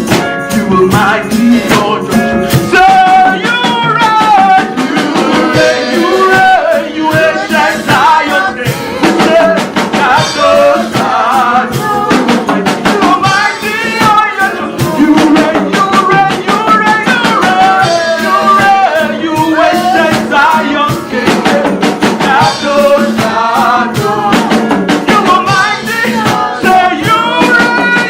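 Live worship music: a band with drum kit and shaken percussion playing loudly and steadily, with singing over it.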